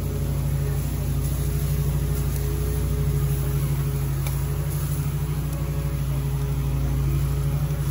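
A steady low mechanical hum, like a motor or engine running without change, with one faint click a little past the middle.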